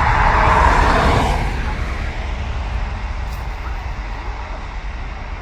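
Jet aircraft passing, a broad rushing roar loudest in the first second and fading away, over a steady low rumble.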